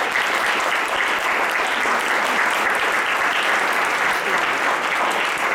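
Audience applauding steadily after a reading, a dense patter of many hands clapping.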